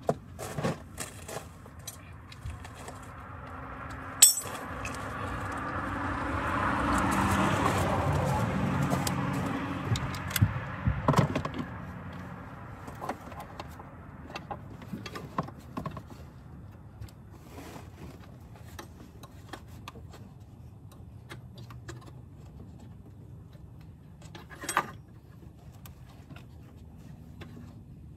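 Intermittent metallic clicks, clinks and scrapes of hand work in a car's engine bay, as parts and fittings around the intake of a Dodge Nitro's 4.0L V6 are handled and refitted, with a couple of sharper clacks. A rushing noise swells and fades over several seconds in the first half.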